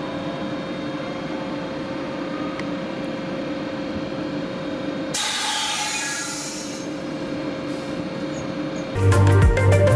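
Electric multiple-unit train standing at a platform, humming steadily with several held tones. About five seconds in, a loud hiss of released air lasts over a second. Background music with a beat starts near the end.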